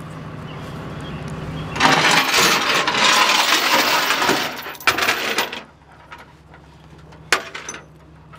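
A tie-down strap with metal hooks and chain is pulled and dragged across the metal deck of a flatbed tow truck: a few seconds of loud rustling and clinking, then a single sharp clank near the end. A steady low hum runs underneath.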